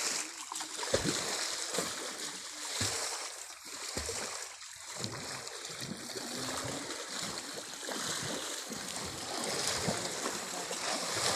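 Water splashing and sloshing as a person wades and hauls a fishing net in a muddy river, with a few dull knocks from the net being handled.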